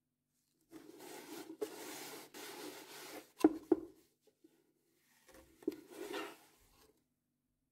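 A microfiber cloth rubbed and wiped over an air fryer's casing in two stretches, with two sharp knocks about three and a half seconds in.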